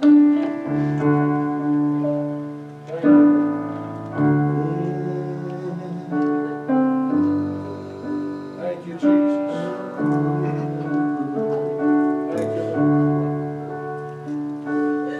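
Piano playing slow, sustained chords, a fresh chord struck about every second or so, as quiet accompaniment.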